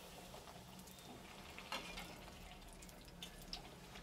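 Poori deep-frying in hot oil in a kadhai: a faint, low sizzle with a few scattered crackles and pops.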